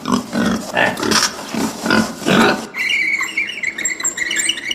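Domestic pig grunting and oinking, a quick run of calls about two or three a second. In the last two seconds a different, higher chittering sound takes over.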